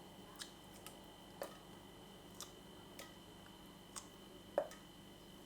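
Faint ticking about once a second, like a clock, with a slightly louder tap near the end, over a quiet room with a thin steady high whine.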